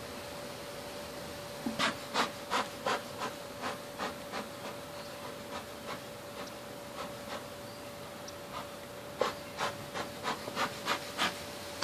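Two runs of quick back-and-forth cutting strokes, about three a second, of a blade working through old honeycomb in a wooden birdhouse hive, the first run fading out and the second starting about nine seconds in. A steady faint hum sounds underneath.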